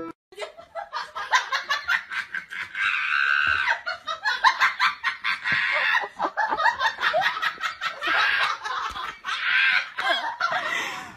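A person laughing hard and almost without a break, in quick breathy runs of high laughter.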